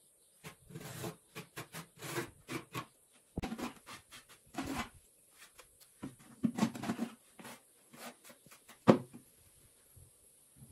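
Steel trowel scraping mortar out of a plastic bucket and spreading it onto the blocks: irregular short scrapes and knocks, with one sharp knock about nine seconds in.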